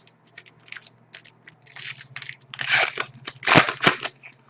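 A Panini Pinnacle hockey card pack being torn open: a run of crinkles and rips, loudest in the second half, over a faint low hum.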